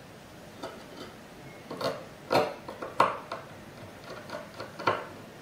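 Irregular sharp clicks and taps of a small screwdriver and screw as the screw that holds a TPM module on a motherboard is driven in, the loudest about two and a half, three and five seconds in.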